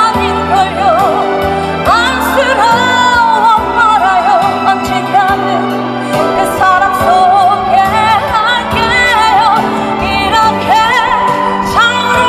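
A woman singing a slow melody with wide vibrato into a handheld microphone, amplified, over instrumental accompaniment with a bass line that moves note by note.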